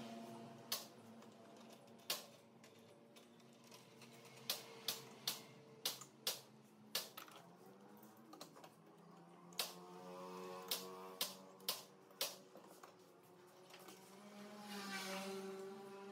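A series of sharp clicks at irregular intervals, some in quick runs, over soft sustained tones that swell and fade.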